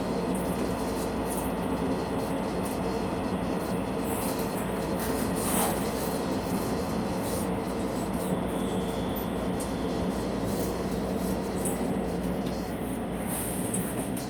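Taiwan Railways local train running, heard at the gangway between two cars: a steady rumble of wheels on track with the rattle of the car-connection plates. There is a brief sharper sound about five and a half seconds in.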